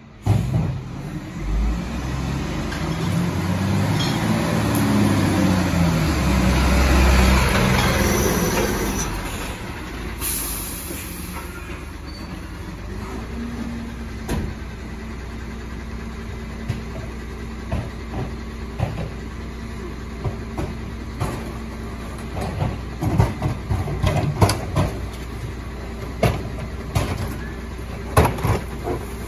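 A Garwood rear-loader garbage truck's diesel engine pulls up under load, then settles to a steady idle hum about thirteen seconds in. From about twenty seconds on, repeated clanks and knocks come from wheelie bins being tipped by hand against the rear hopper.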